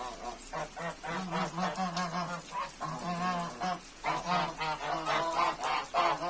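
A small flock of domestic geese honking, many short calls from several birds overlapping with hardly a break.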